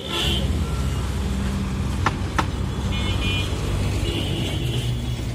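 Street traffic: a motor vehicle engine running close by with a steady low hum, and two sharp clicks a little after two seconds in.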